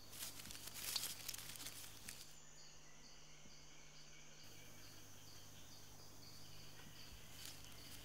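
Faint outdoor ambience of insects chirping, a regular high pulse repeating a few times a second over a low steady hiss.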